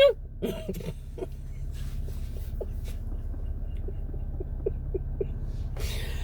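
The tail of a big vocal yawn, falling in pitch and dying away in the first second. Then the steady low hum of a car's cabin with a few faint small squeaks, and a breathy exhale near the end.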